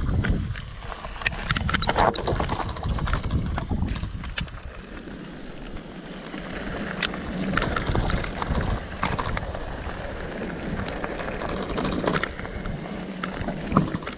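Mountain bike riding over a rough, stony trail: tyres crunching on loose rock, with frequent sharp clicks and rattles from the bike and wind rumbling on the microphone, heaviest in the first few seconds.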